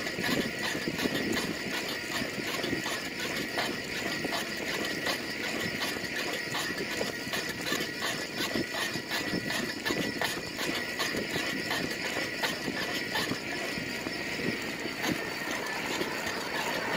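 Steady running noise of a small vehicle being ridden along a road, with fast, regular ticking and a faint steady whine.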